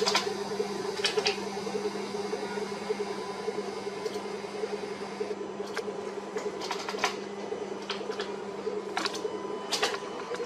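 Steady machinery hum with a handful of short, sharp clicks scattered irregularly through it, like those of a computer mouse or keys being worked.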